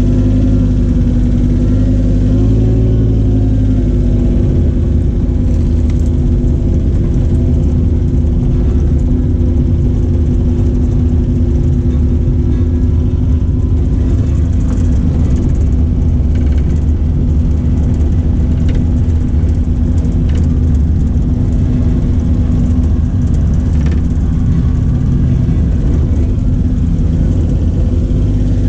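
Cat mini excavator's diesel engine running loud and steady under working load.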